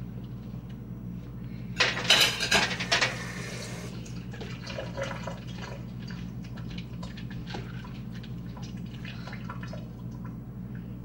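Wet pumpkin seeds being scooped from a bowl of water and set down on a metal baking sheet: small wet taps and drips, with a louder burst of wet clatter about two seconds in that lasts about a second. A steady low hum runs underneath.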